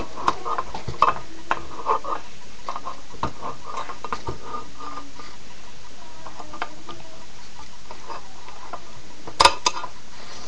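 Credit card knife's can opener blade levering and cutting its way around a tin can's lid: irregular metallic clicks and short scrapes, with a sharper click about nine and a half seconds in.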